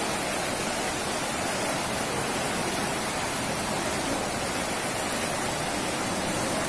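Floodwater surging down a street in a steady, unbroken rush.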